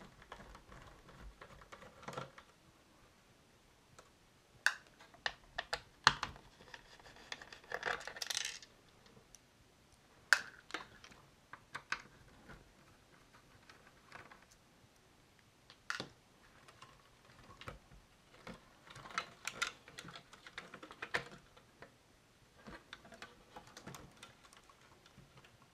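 Scattered clicks, taps and knocks of a cassette recorder being taken apart by hand: its plastic case and metal tape mechanism knocking as they are handled, with a brief scraping rustle about eight seconds in.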